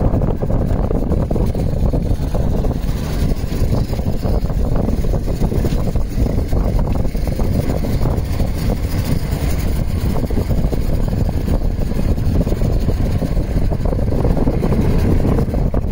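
Small motorboat under way: its engine runs steadily while water rushes along the hull, with wind buffeting the microphone.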